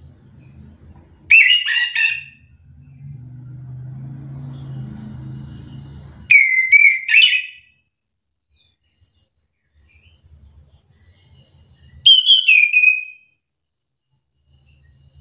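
Chestnut-capped thrush (anis kembang) singing: three short, loud phrases of whistles and quick up-and-down sweeps, each about a second long and about five seconds apart.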